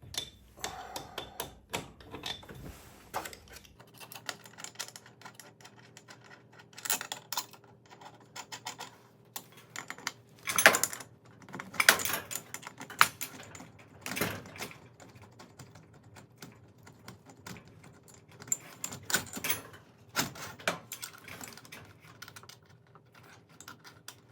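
Steel winding bars clinking and clanking in the winding cone of a garage door torsion spring as the spring is unwound hand over hand a quarter turn at a time. Irregular metallic clicks and clanks, with the loudest strikes in the middle of the stretch.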